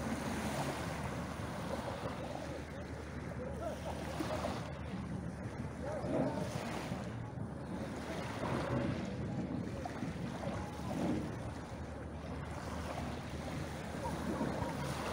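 Small waves breaking and washing onto a pebble beach, surging every second or two, with wind rumbling on the microphone.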